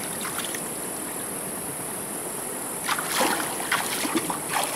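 Shallow stream flowing with a steady rushing hiss; about three seconds in, splashing and sharp knocks start as rocks are carried through the water and set down into a stone fish-trap wall.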